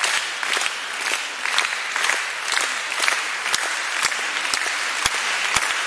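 Audience applauding steadily. Near the end, one clapper close by stands out at about two claps a second.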